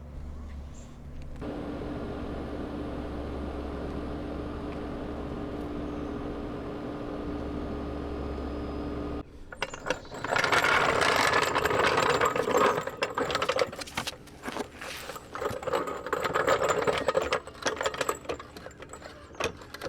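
A steady mechanical hum that stops abruptly, followed by a run of quick, irregular metallic clicks and rattles, like hand tools working on a car.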